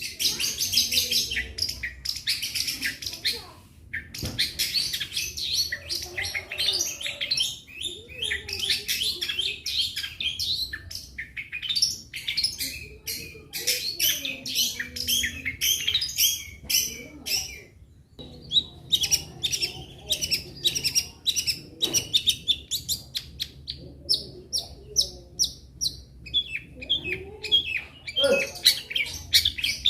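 Long-tailed shrike singing a fast, dense song of rapid repeated high notes in long runs, with a couple of brief pauses. This is the 'roll speed' style prized by shrike keepers, laced with imitations of other birds.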